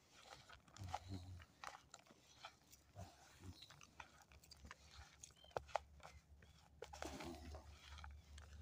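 Hands kneading a damp homemade groundbait dough of seedy chicken feed, polenta and flour: faint, irregular crunching with scattered small clicks.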